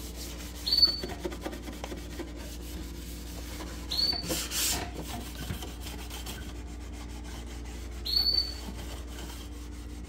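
Hand scrubbing and wiping inside a refrigerator with a cleaning solution, a steady rubbing sound with three short high squeaks about four seconds apart and a brief hiss just after the middle.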